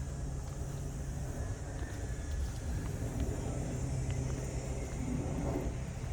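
Steady low outdoor rumble with a constant low hum underneath and a faint high hiss.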